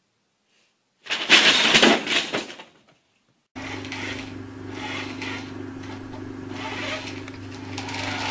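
A loud crinkling burst of a paper bag being pushed about, lasting about a second and a half. After a short silence comes a steady low electric hum with scratchy noise rising and falling over it, from a small battery-powered toy car running on carpet.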